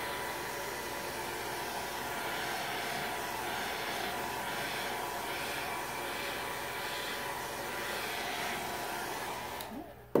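Handheld hair dryer blowing steadily with a faint whine, drying freshly applied chalk paint; it is switched off near the end.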